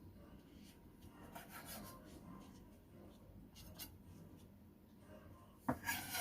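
Faint scraping and rubbing of hands and utensils working tomatoes, deseeding them on a board, with a louder clatter near the end.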